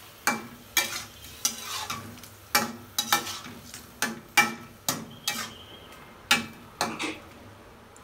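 Metal spatula scraping and knocking against a metal karahi as small punti fish are stirred in a thick spice paste, with a faint sizzle of frying underneath. The strokes come irregularly, about one or two a second.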